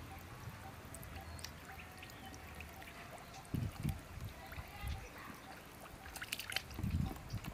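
Water splashing and trickling, with a few low dull thumps about three and a half seconds in and again near the end, and a patter of small sharp clicks just before them.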